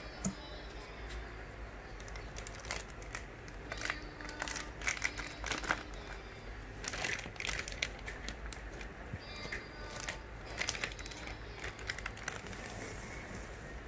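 Plastic wrapping of packs of cotton buds crinkling and crackling in irregular bursts as a hand presses and handles them.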